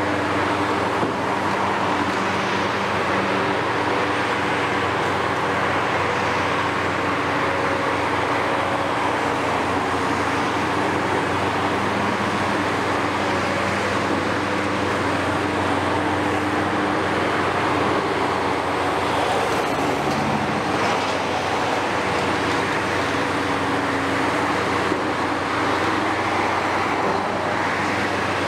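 Two heavy demolition excavators running steadily under load: a Hitachi 470 and a Kiesel KMC 600 with its Isuzu six-cylinder common-rail diesel. Over their engine tone runs a continuous noisy wash of masonry being crushed and rubble falling.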